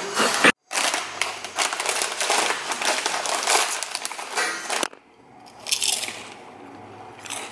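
Crunching and scraping from a meal being eaten out of a plastic takeout container with a plastic fork, dense for about four seconds. It then drops to a low hush with a couple of brief rustles.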